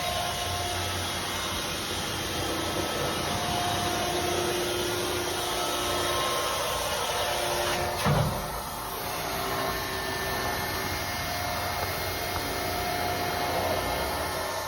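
Cramalot HX72 baler's motor and hydraulics running with a steady hum and faint whine, with a single knock about eight seconds in.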